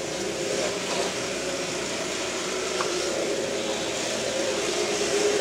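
Steady background din of a busy wet market: a continuous mix of indistinct crowd noise and hum, with no clear single event.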